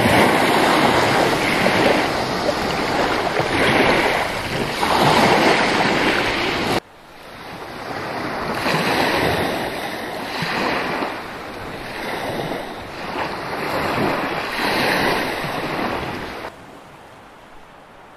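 Small waves breaking and washing up a beach of small white pebbles, the surf swelling and drawing back every second or two. There is an abrupt cut about seven seconds in, after which the waves are quieter, and near the end the sound drops to a faint hiss.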